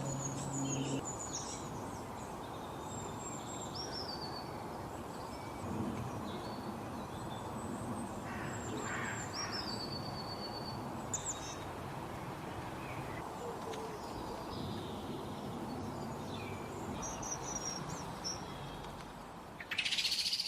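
Several wild birds chirping and calling in short high notes and glides, over a steady background noise. A low steady hum runs through the first second, and a louder burst of sound comes near the end.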